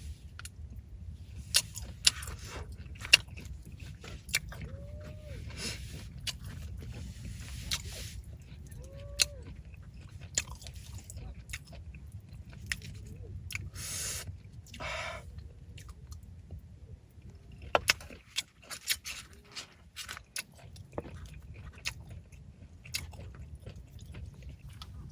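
Scattered sharp clicks, knocks and short rustling, crunching noises of things being handled close to the microphone, over a low steady rumble.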